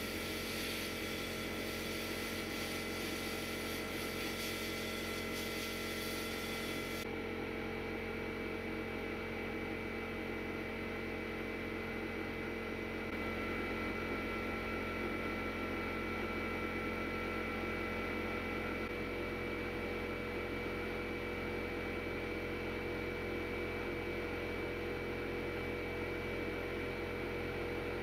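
Sandblasting cabinet running: the hiss of the blast gun on pressed-steel toy parts for about the first seven seconds, which then cuts off suddenly, leaving a steady motor hum.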